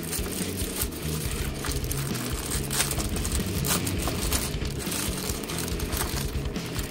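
Clear plastic bag crinkling and rustling in irregular short crackles as it is handled and opened, with background music underneath.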